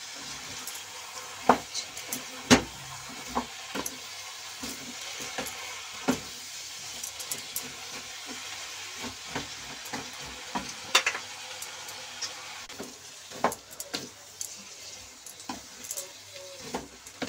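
Eggplant, potato and soya chunks sizzling in spiced masala in a kadhai with a little water just added, while a wooden spatula stirs them. The spatula knocks against the pan now and then, loudest about two and a half seconds in and again about eleven seconds in.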